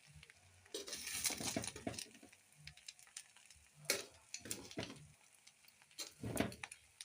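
Spoon stirring and scraping rice in a cooking pot, in a few irregular strokes with pauses between them.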